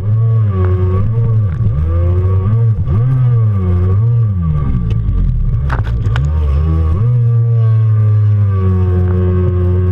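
Stand-up Jet Ski engine revving up and down as the rider carves turns, its pitch dropping and climbing several times, then holding steady for the last few seconds. Water spray slaps against the craft about halfway through.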